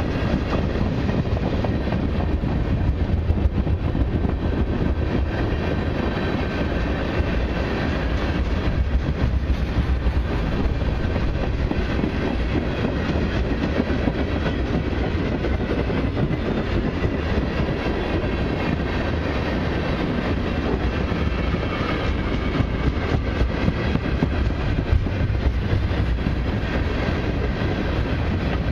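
Freight train's tank cars rolling steadily past at speed, a continuous rumble of steel wheels on rail with irregular clicks and clatter as the wheels cross rail joints.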